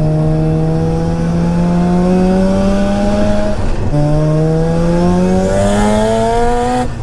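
Single-turbo Mazda RX-7 FD3S 13B twin-rotor rotary engine heard from inside the cabin, pulling hard under acceleration with its pitch rising steadily. About three and a half seconds in it drops briefly for a gear change, then climbs again in the next gear with a faint high whistle rising alongside, before cutting off just at the end.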